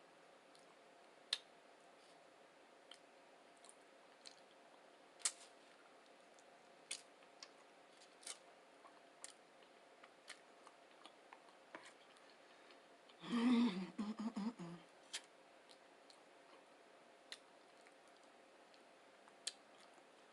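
Close-up mouth sounds of a person chewing a breakfast burrito: scattered soft wet clicks and smacks. About thirteen seconds in there is one louder, rough, low sound lasting about a second and a half.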